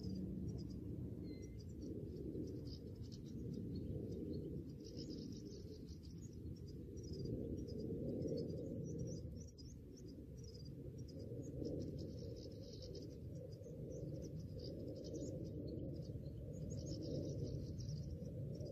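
Steady wind noise on the microphone, with small birds twittering in short high-pitched bursts every few seconds.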